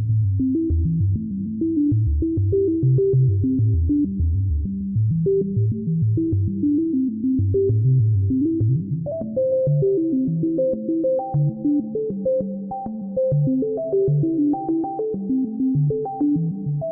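Generative ambient synth music: soft plucked notes in a major pentatonic scale, made by oscillators shaped through low-pass gates and widened with plate reverb, overlapping in a low register. About halfway through, a higher line of plucks enters above them.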